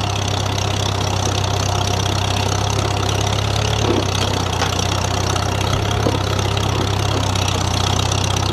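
Farmall 300 tractor engine running steadily as the tractor moves forward slowly.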